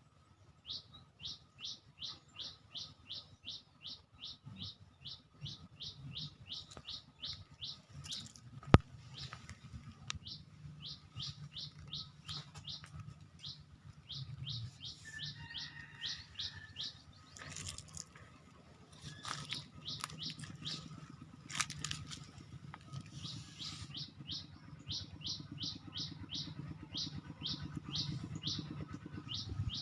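A bird calling a long, rapid series of high, short notes, each falling in pitch, about three a second, pausing briefly now and then. A sharp click about nine seconds in is the loudest sound, and a few rustling noises come in the middle.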